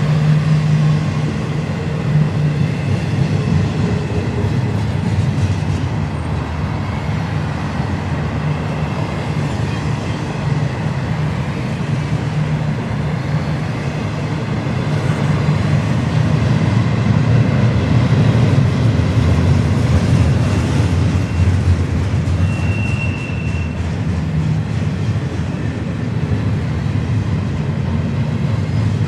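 BNSF double-stack intermodal freight train rolling past: the steady rumble and clatter of the well cars' wheels on the rails. One short high squeal about three-quarters of the way through.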